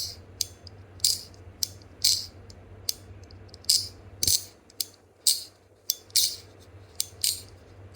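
ACEdc Emoji clicker fidget toy being clicked over and over by hand: sharp, high-pitched clicks about twice a second, unevenly spaced.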